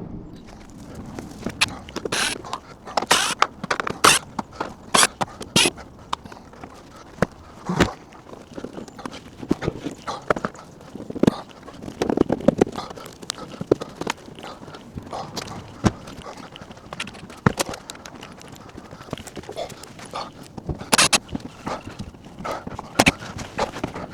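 Irregular sharp clicks, knocks and metallic clinks of hand tools and fasteners as a car's front bumper is being taken off.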